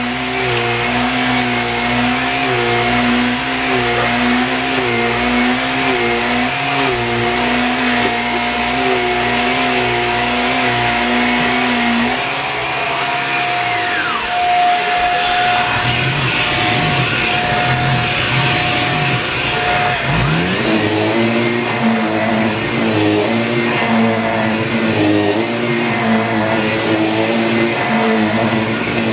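Vacuum cleaner running steadily and loudly, with a high steady whine in its noise. A wavering pitched sound rides over it, dropping out about twelve seconds in and coming back later.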